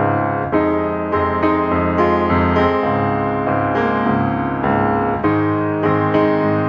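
Background piano music: a steady run of notes, about two a second.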